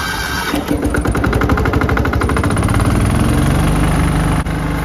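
Mobile pressure washer's engine running just after being pull-started, firing in a rapid, even chug that is unsteady for the first couple of seconds and then settles to a steady speed.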